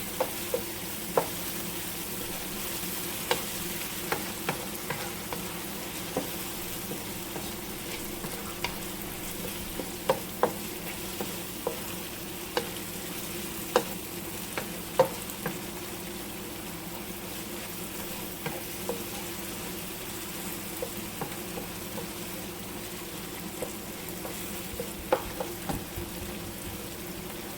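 Onions, carrots, tomato and garlic-ginger paste frying in oil with spices in a pot: a steady sizzle, with a spoon clicking against the pot now and then as it is stirred.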